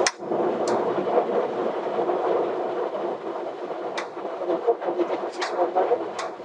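Steady flight-deck noise of a Boeing 737 MAX in flight, a continuous rush of air and engine hum. A few sharp clicks sound over it, the first as a switch on the overhead panel is worked.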